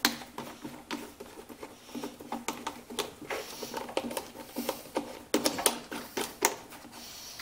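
Irregular clicking and rattling of hard plastic as the air filter cover on an Echo PB-500T backpack blower is worked loose and pulled off its housing.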